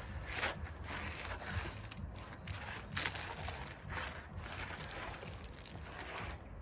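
Crinkling, scrunching handling sounds of the resin-wetted patch liner matting being worked by hand, coming in irregular strokes about one every half second.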